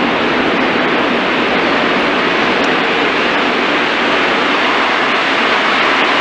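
Metro train approaching through the tunnel toward the platform: a loud, steady rushing noise of the train running on the rails.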